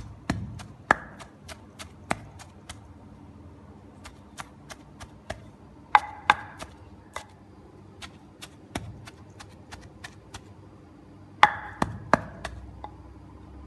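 Pestle pounding shredded chicken and sesame in a mortar for a Lao jaew: a run of sharp knocks, about two to three a second, with a few louder strikes.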